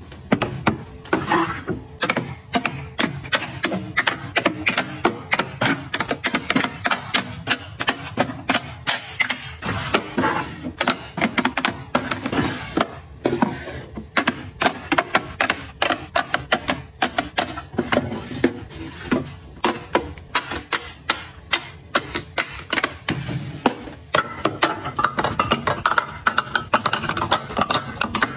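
Small hard items being handled and set down: a busy run of clicks, taps and clatters, several a second.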